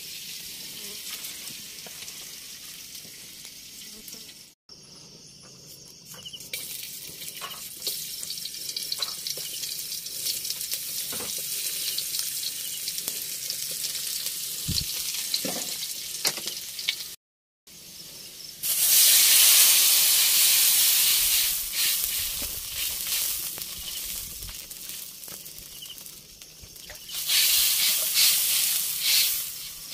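Food sizzling as it fries in hot oil in a pan, with light clicks of stirring. The sizzle swells sharply and loudly about two thirds of the way in and again near the end.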